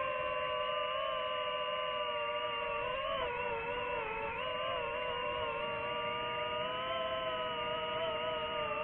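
DJI FPV drone's propellers and motors whining steadily in flight, several close tones that drift slightly up and down in pitch as the throttle changes.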